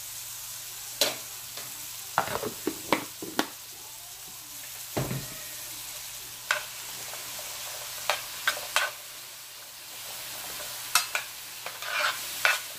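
Sugar snap peas and butternut squash cubes frying in an electric skillet, a steady sizzle, with scattered sharp clicks and scrapes of a utensil, one with a dull thump about five seconds in, and stirring in the pan near the end.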